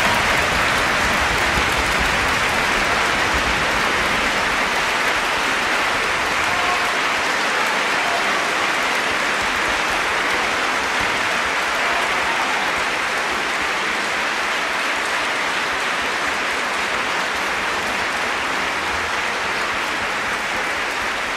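Theatre audience applauding steadily, the clapping easing off slightly toward the end.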